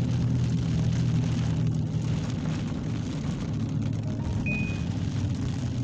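Rain falling steadily in a thunderstorm, with a low steady hum that fades out over the first two seconds and a short high beep about four and a half seconds in.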